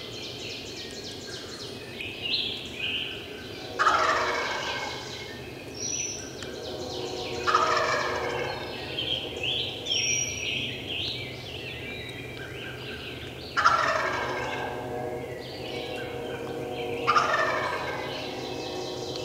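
A wild turkey gobbler gobbling four times, each gobble a loud, sudden, rattling call a few seconds apart. Songbirds chirp steadily in the woods behind it.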